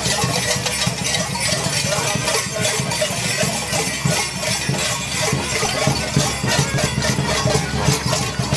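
Bells jingling and clinking constantly on the costumes of a crowd of goat-dance (capra) performers, over a steady low rumble.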